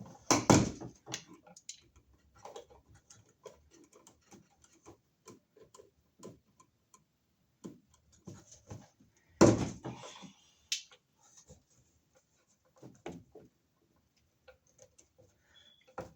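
Electrical wires having their insulation stripped: scattered small clicks and handling noises, with two louder sharp snaps, one about half a second in and one near ten seconds.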